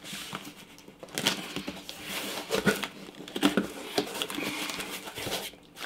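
Shipping packaging being opened by hand: irregular crinkling, rustling and tearing of cardboard and wrapping, with scattered light knocks.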